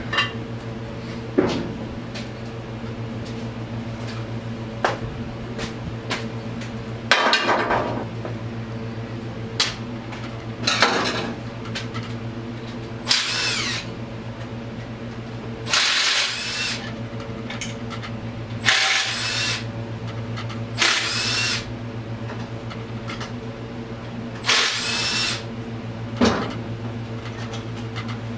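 Hand-held power tool whirring in about seven short bursts of a second or so, the motor spinning up and down each time as fasteners are run out during an ATV engine teardown. A steady low hum runs underneath, with a few short clicks between the bursts.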